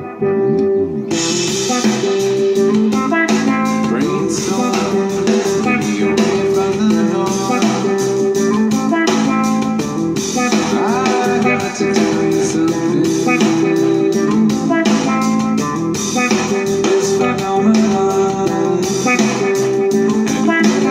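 Music played through an Oontz Angle 3 Bluetooth speaker and picked up by a phone's built-in microphone: a guitar-led track, with drums coming in about a second in.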